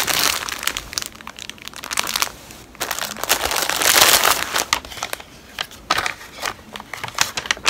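Clear plastic packaging bag crinkling as it is opened and rummaged through, in irregular bursts, the heaviest about three to four and a half seconds in. Lighter rustles of the bag and a paper instruction sheet follow near the end.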